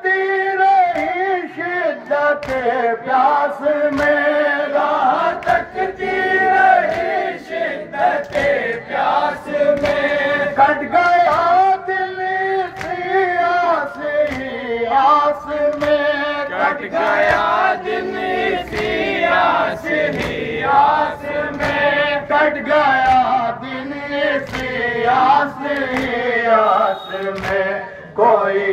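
A crowd of men chanting a nauha, a Muharram lament, in unison. Regular sharp slaps of chest-beating (matam) keep the beat under the voices.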